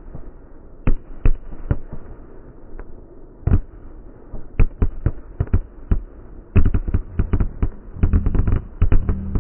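Fireworks bangs in a finale. Separate booms come every half second to second at first, then a rapid barrage of overlapping bangs starts about two-thirds of the way in. The sound is dull, with no high end.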